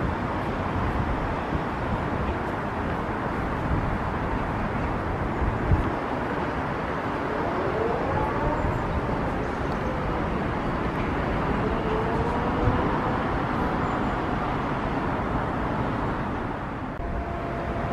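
Steady noise of distant city traffic, with a faint tone that rises and falls a couple of times around the middle.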